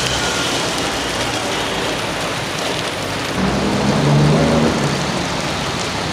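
Rain falling and water streaming and dripping off a road bridge onto the ground below: a steady, loud hiss of splashing water. A low hum, like a passing vehicle, swells about halfway through.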